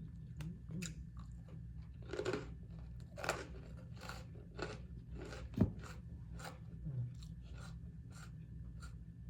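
Close-up chewing of crisp salad greens and cucumber, crunching about twice a second, with one sharp tap a little past halfway and a steady low hum underneath.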